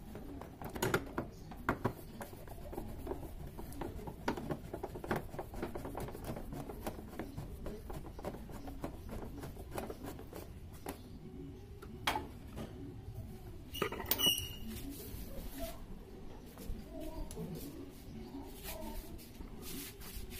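Screwdriver working screws out of a motorcycle's plastic body panel: many small clicks and scrapes of the tool and screws against the plastic, with a brief ringing clink about fourteen seconds in.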